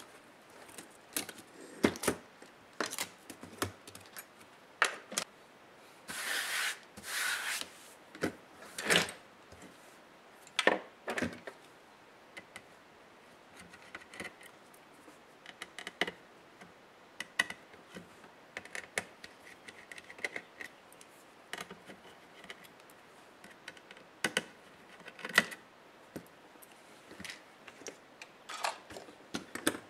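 Hands taking a laptop apart: scattered clicks, taps and knocks of plastic parts and small tools, with a longer scraping sound from about six to seven and a half seconds in.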